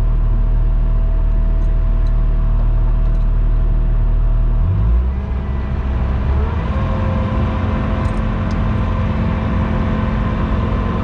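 Skid steer engine running steadily, heard from inside the cab; about five seconds in it speeds up to a higher steady pitch, and a whine rises and then holds.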